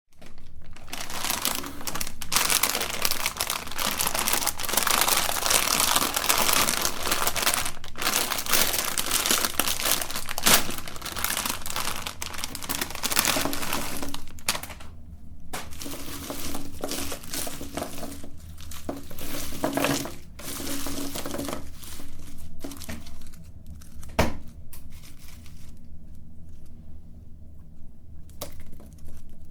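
Candy being crushed in a meat grinder: a dense crinkling, crunching crackle for about the first fourteen seconds, then thinner and more broken up, with a few sharp single cracks.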